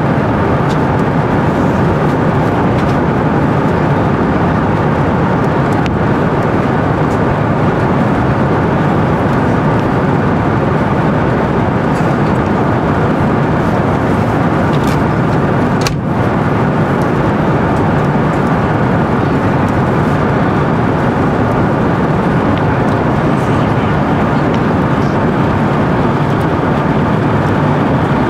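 Steady cabin noise of an Airbus A350-900 in cruise: the even roar of airflow and engines. A few faint clicks sound over it, one sharper about sixteen seconds in.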